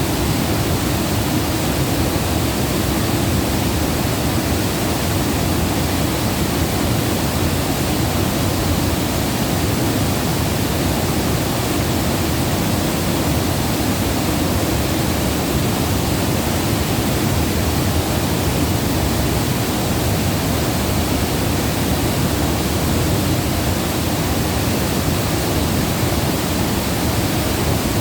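Water rushing steadily, a dense unbroken noise with its weight in the low range and no separate splashes.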